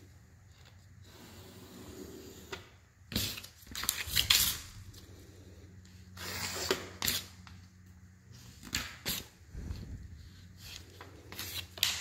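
A gloved hand working caulk along masking tape at a floor corner: a few short scuffing, rustling bursts, the loudest about four seconds in, over a faint steady hum.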